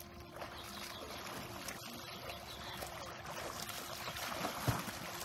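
Water splashing and churning as children swim and kick through a pool, a steady wash of noise.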